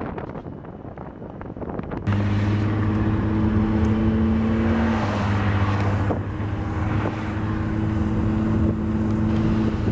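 Rough, wind-like rushing noise for about two seconds, then, after an abrupt cut, a steady low engine drone with a clear pitch and overtones that shifts slightly about halfway through.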